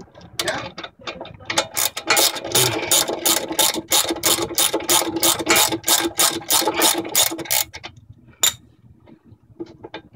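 Hand ratchet wrench clicking at an even pace, about four clicks a second, as a bolt at the brake caliper is turned out. The clicking stops about eight seconds in, and one last louder click follows.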